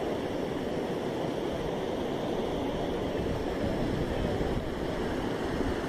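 Steady rushing of a river in flood, fast muddy water pouring over its banks, with wind buffeting the microphone.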